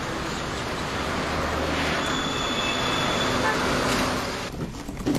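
Night city traffic noise: a steady rush of passing vehicles that swells and falls away about four and a half seconds in, with a short high tone like a horn about two seconds in.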